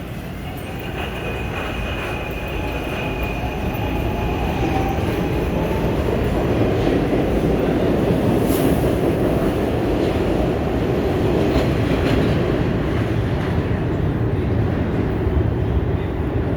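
M4 railcar in motion: a loud, steady rumble of running gear that builds over the first few seconds and then holds, with faint high whining tones near the start that fade out.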